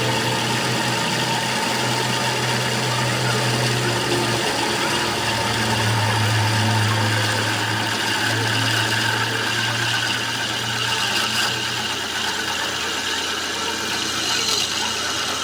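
A machine motor running steadily: a low hum that swells and eases, under a rough, even mechanical noise.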